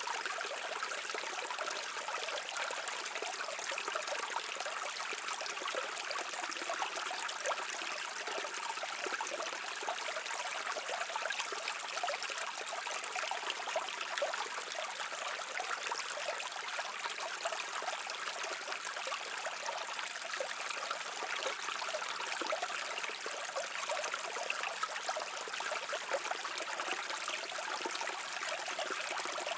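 A brook flowing steadily, with a fine trickling and splashing of water and no deep rumble.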